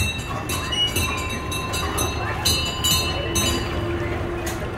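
Amusement ride machinery running: a steady low rumble with a thin steady whine and a few faint knocks.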